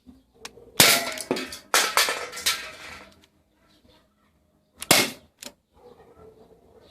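CO2 airsoft revolver replica (Ruger Super Hawk) firing 0.35 g plastic BBs: sharp cracks with clatter after them about a second in, then another single crack near five seconds in.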